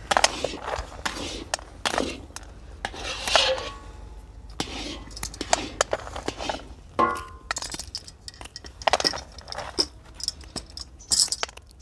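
A long-handled metal scraper stirring and scraping thick carrot halwa around a large iron kadhai in repeated strokes, keeping it from sticking to the pan as it thickens. Light clinks of a knife on a steel plate are mixed in as dry fruit is sliced.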